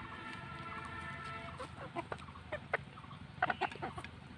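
Chickens feeding and clucking softly: a faint held tone in the first second and a half, then a scatter of short clucks in the second half.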